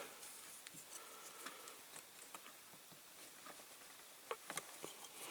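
Faint, scattered clicks and light taps of a small diecast metal toy being handled while its tabs are bent over, with a few sharper ticks near the end.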